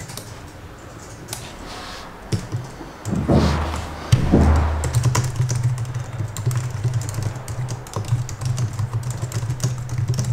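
Typing on a computer keyboard, a run of short key clicks. About three and four seconds in come two deep swelling sounds, and from about five seconds on a low hum runs under the clicks.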